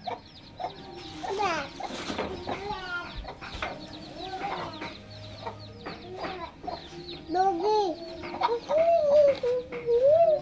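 Animal calls: many short pitched calls in quick succession with scattered clicks, then longer drawn-out calls in the last few seconds.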